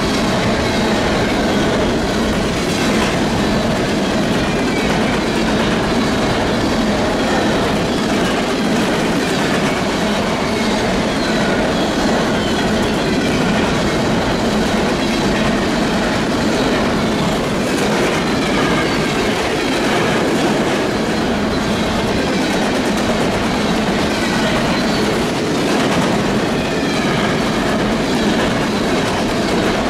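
Coal train's hopper cars rolling past: steady rumble of steel wheels on rail, with rhythmic clickety-clack over the rail joints and faint wheel squeal here and there.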